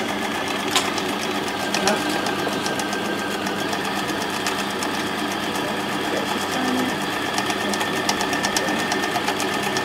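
Electric sewing machine running steadily at speed, its needle mechanism making a fast, even ticking rhythm.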